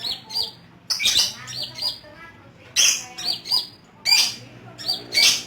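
Olive-backed sunbirds calling: a run of sharp, high chirps and short rising notes, coming in quick clusters every half second to a second.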